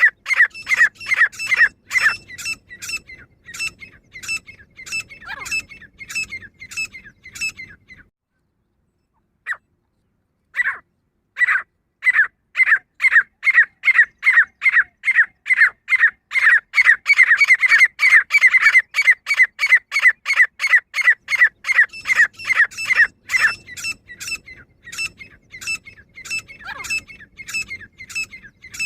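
Female grey francolin calling: a rapid, repeated run of high, harsh notes, about three a second. The run breaks off after about eight seconds, pauses briefly, then starts up again and continues.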